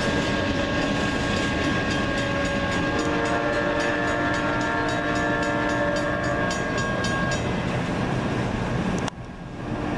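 Amtrak passenger train passing: a multi-chime locomotive air horn, the K5LA on the lead GE Genesis P42DC, holds a long chord that ends about seven seconds in, while the cars' wheels click steadily over rail joints. The sound drops abruptly about nine seconds in.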